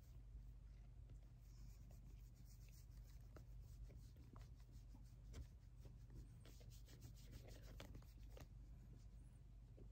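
Faint, irregular rubbing and scratching of a hand stroking a cat's head fur, over a low steady hum.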